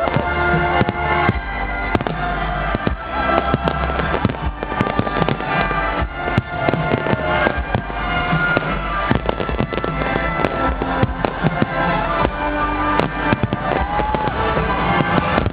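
New Year's Eve fireworks going off continuously: many rapid bangs and crackles from rockets and firecrackers, over loud music.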